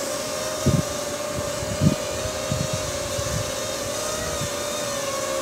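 Ryze Tech Tello mini quadcopter hovering, its propellers giving a steady buzzing whine that wavers slightly in pitch. Two low thumps come about one and two seconds in.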